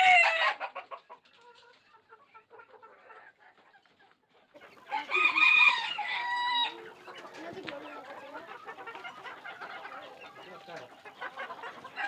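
A rooster crowing once about five seconds in, a call of about two seconds, with the end of another crow fading at the very start. Softer clucking of chickens fills the rest.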